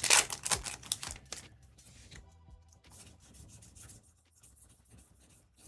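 Trading cards being handled and slid against each other: a quick run of rustling, sliding card sounds in the first second or so, then faint scattered clicks.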